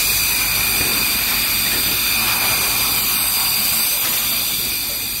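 Factory machinery running: a loud, steady hiss with a few constant high-pitched tones over it.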